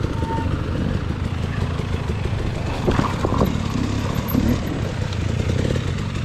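Off-road motorbike riding along a rough dirt single track: a steady rumble of wind on the microphone mixed with the rattle of the bike over the bumps.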